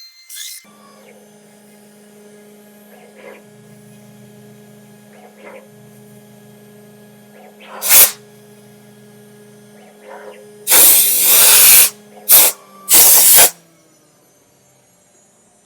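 Steady electrical hum from the CNC machine, with a lower tone that switches on and off several times. One short loud hiss comes about eight seconds in, and three longer loud hisses follow between about eleven and thirteen and a half seconds.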